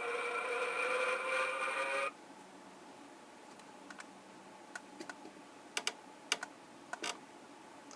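Electronic sound effect from the small speaker of a Diamond Select 'The Cage' edition Enterprise toy: a steady, several-toned buzzing hum that cuts off abruptly about two seconds in. It is followed by a few scattered sharp clicks.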